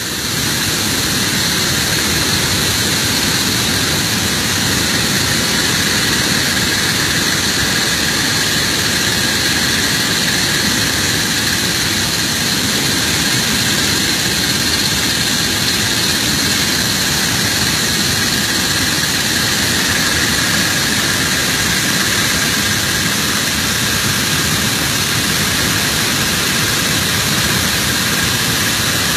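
Steady roar of the Bản Giốc waterfall close by, mixed with the steady drone of the boat's motor and a thin high whine.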